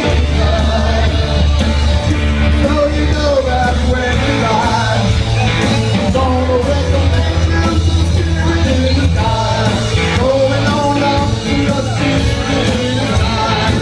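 Live rock band playing: electric guitars, bass and drums under a male lead singer, loud and continuous.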